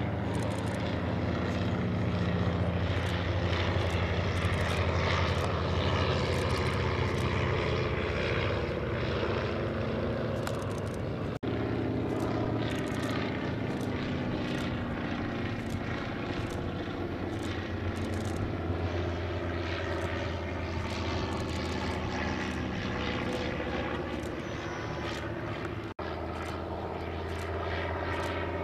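Single-engine piston propeller planes flying overhead, with a continuous engine drone whose pitch slowly drifts as they pass. The sound cuts out briefly twice, once near the middle and once near the end.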